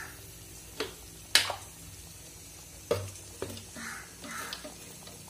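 Metal ladle stirring thick, simmering masala gravy in a steel pot, knocking against the pot several times; the loudest clink comes about one and a half seconds in, with softer scraping swishes near the end.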